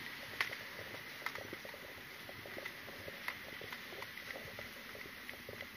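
Footsteps on a paved sidewalk with light clicks and knocks from carried gear as a person walks, over a faint steady high tone.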